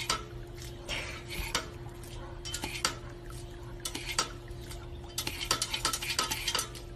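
Dog working the plastic step pedal of a paw-operated water fountain with its front paw, making repeated irregular clicks and clatters with splashing water. A steady hum runs underneath.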